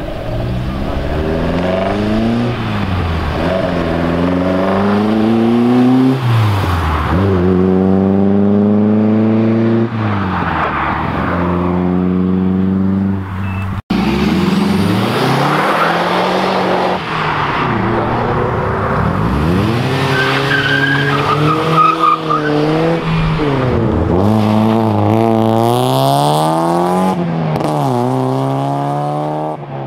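Car engines revving hard as cars accelerate away, the pitch climbing and then dropping at each gear change, over and over. The sound breaks off sharply about halfway through and carries on with another car pulling away.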